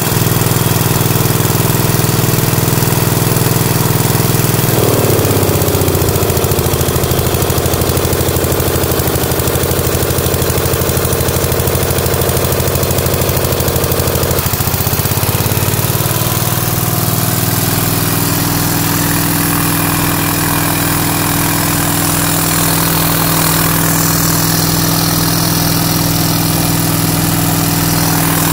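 Lindsay Model 25-HU air compressor running, driven by its air-cooled Wisconsin 12 HP engine at a steady rumble. The engine note changes about five seconds in, changes back around fifteen seconds, and then holds steady.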